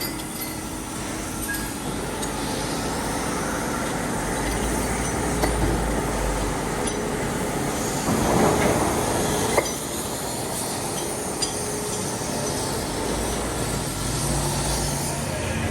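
Steady workshop machinery noise with scattered metallic clinks, and a louder rush of noise about eight seconds in that lasts a second and a half before cutting off sharply.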